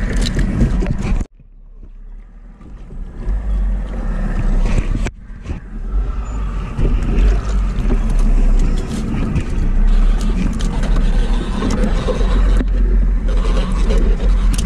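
A small boat's motor runs steadily with a low rumble, and scattered knocks come from handling the fishing gear. The sound cuts out abruptly about a second in and builds back up over the next few seconds.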